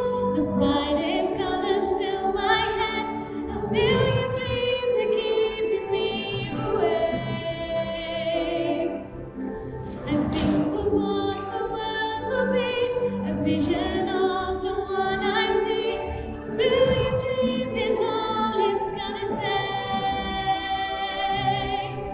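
A woman singing long, held phrases with vibrato, pausing briefly between phrases.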